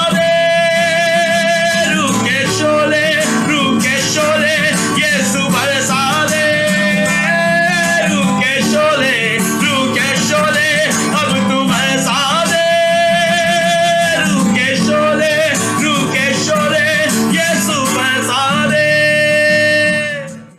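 Live worship band music, with long held melody notes that waver, over the band's accompaniment; the music cuts off abruptly at the very end.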